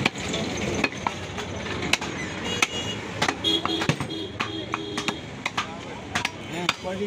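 Meat cleaver chopping beef on a wooden log chopping block: a quick, irregular series of sharp chops, roughly a dozen, with voices in the background.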